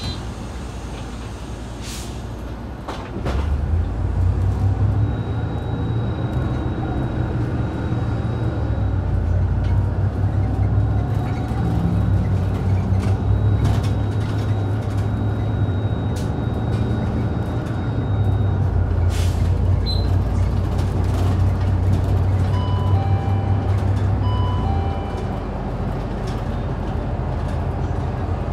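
Hyundai Super Aero City city bus pulling away and accelerating, its engine running under load as heard from inside the cabin. A couple of sharp clicks come about two and three seconds in, the engine hum swells just after, and it eases a few seconds before the end.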